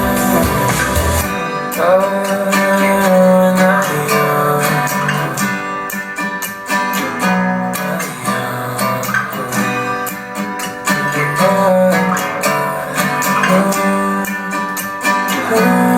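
Indie pop song with plucked and strummed guitar. The deep bass drops out about a second and a half in, leaving the guitars over a lighter low end.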